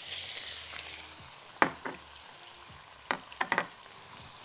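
Raw julienned chicken breast sizzling as it drops into hot butter and oil, the sizzle dying down after about a second. A few sharp clinks and knocks follow from the glass bowl and spatula.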